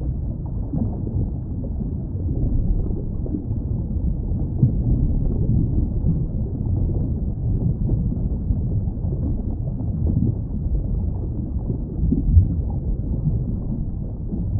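Underwater ambience: a steady, muffled low rumble with no high sounds at all, and one brief louder swell near the end.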